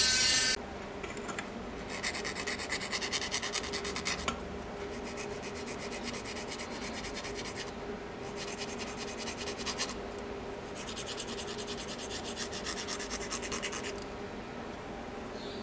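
Round needle file rasping back and forth around the edge of a hole in a thin plastic sheet, in four spells of quick strokes with short pauses between. A louder hiss cuts off about half a second in.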